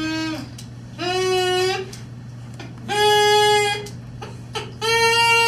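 A plastic drinking straw blown like a small wind instrument, sounding short held notes of about a second each: the tail of one note, then three more. Each note is higher than the last, as the straw is cut shorter and its shorter length gives a higher pitch.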